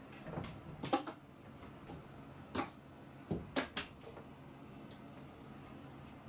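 A cat scrambling and jumping about a cat tower while going after a wand toy: a few sharp knocks and taps, one about a second in and a quick cluster around three and a half seconds in.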